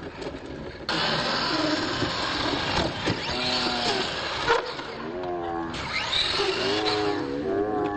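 R/C monster truck driven on its side across concrete, its motor and spinning tyres giving a loud whirring hiss that starts suddenly about a second in, cuts off a little past halfway, then comes back briefly.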